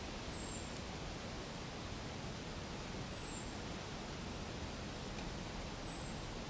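Steady outdoor hiss with a high, thin call that falls in pitch, heard three times about three seconds apart.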